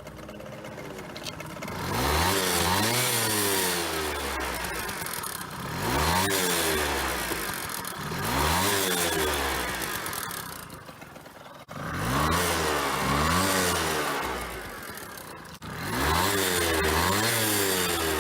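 Honda Dio 50 cc scooter engine revved about five times, each rev climbing and then dropping back toward idle, with a growling 'won-on-on' noise that the owner puts down to a worn crankshaft bearing.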